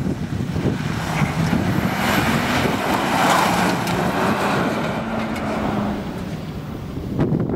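Seat Leon Cupra's turbocharged four-cylinder engine revving up and down as the car is driven hard through a slalom course. It is loudest as it passes close about three seconds in, then fades as it pulls away.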